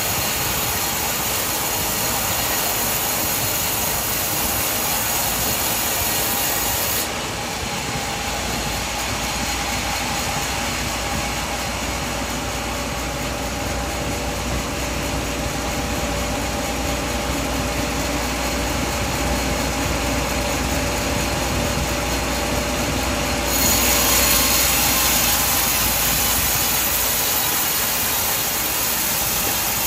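Sawmill bandsaw running and cutting through a coconut palm trunk, a steady mechanical din with a few held tones. The sound goes duller about a quarter of the way in and turns brighter and louder again about three-quarters of the way through.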